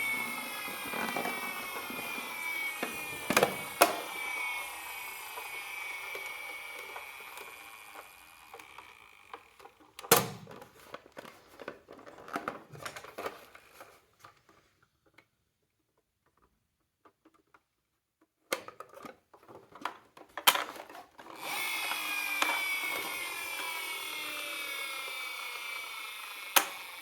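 Several battery-powered toy ambulance and police car sirens wailing at once, their overlapping sweeps fading over the first nine seconds. Scattered sharp clicks and knocks follow, then a few seconds of near silence and more clicks. The sirens start up again all together a little past twenty seconds in.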